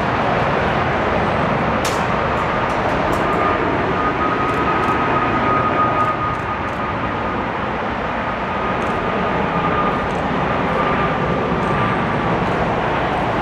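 Boeing 747 jet engines running, a loud steady rushing noise with a high whine held through most of it.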